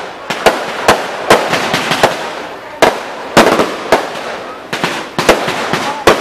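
Fireworks going off overhead: sharp bangs in rapid, irregular succession, about three a second.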